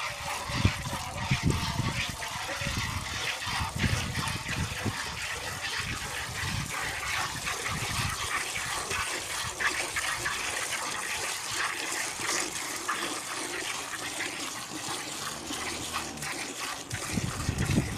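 Cow being milked by hand: repeated jets of milk squirting into a metal bucket and splashing onto the milk already in it.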